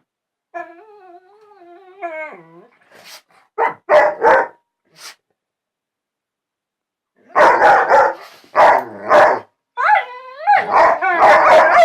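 Two dogs vocalising to each other: a long wavering whining howl, a couple of short barks about four seconds in, then after a pause a run of loud barks mixed with rising whines near the end.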